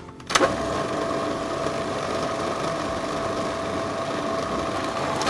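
Electric food processor switching on with a click about half a second in and running steadily, its blade puréeing chopped banana and pineapple, with a steady whine over the motor noise; it cuts off suddenly at the end.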